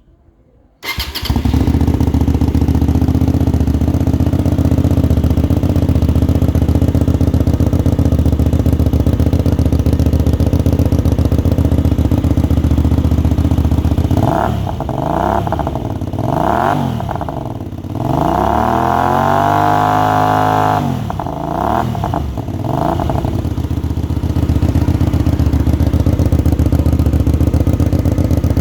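Kasinski Mirage 250 EFi V-twin engine running through a Roncar Scorpion semi-straight-through slip-on exhaust tip, idling steadily. About halfway through it is revved in several quick blips, with one longer rev held for a few seconds, then settles back to idle.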